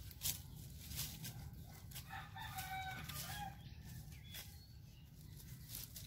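A rooster crows once near the middle, a single call of about a second and a half.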